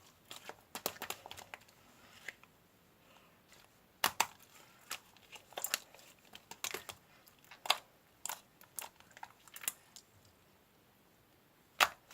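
Slime being squeezed and poked by hand, giving irregular sharp clicks and crackling pops, with the loudest pop near the end.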